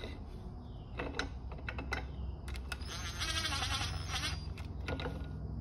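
Metal clinks and taps of long bolts being set through a homemade steel puller plate over a differential pinion, with a cordless drill/driver running in a short burst about three seconds in. A steady low hum sits underneath.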